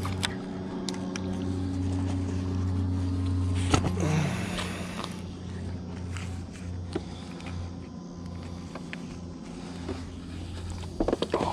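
Small boat's motor humming steadily, with scattered light clicks and a sharp knock about four seconds in, followed by a brief rush of noise.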